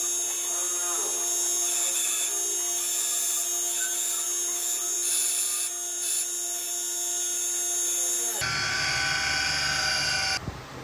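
Lathe running while cutting metal: a steady machining sound with held tones. About eight seconds in it cuts abruptly to a different steady machine sound with a low hum.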